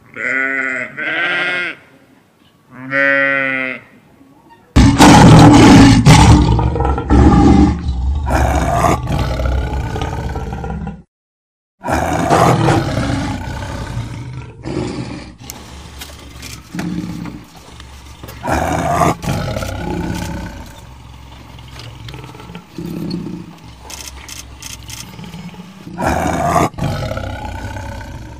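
Three short bleating calls, then a big cat roaring and growling in long, loud bouts, with a brief break about eleven seconds in; the later roars come from a tiger.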